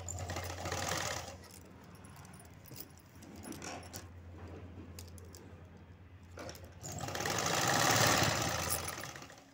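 Sewing machine stitching in two runs, a short one at the start and a longer, louder one near the end, with a steady low hum between them; the bangles on the sewer's wrists clink now and then as she guides the cloth.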